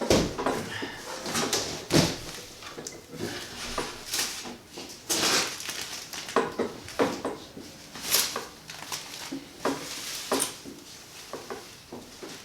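Packaging being handled and unwrapped: irregular rustling, crinkling and scraping, with a few knocks and clatters, as a large item is taken out of its box.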